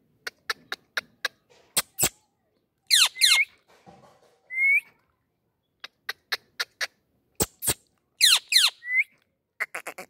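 Indian ringneck parakeet giving two screechy calls that sweep down in pitch, about three and eight seconds in, each followed by a short rising whistle. Runs of sharp clicks come between the calls.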